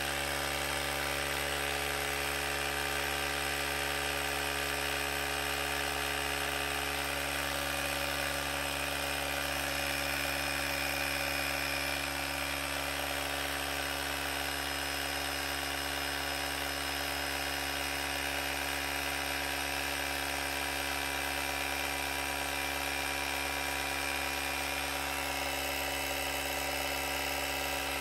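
Cordless tire inflator's small piston compressor running steadily, a constant motor hum and whir, as it pumps up a flat motorcycle tyre.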